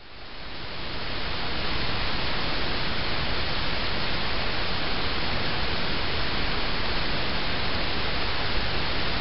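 A steady, even hiss of noise that swells up over the first second and then holds level, with no distinct steps, calls or clicks in it.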